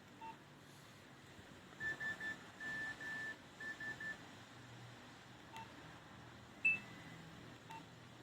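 Nokia 2600 classic mobile phone beeping: short clipped keypad beeps now and then, and a rhythmic run of short and long beeps all on one pitch that lasts about two seconds, as a tone plays through the phone's small speaker. A single louder, higher beep sounds about two-thirds of the way through.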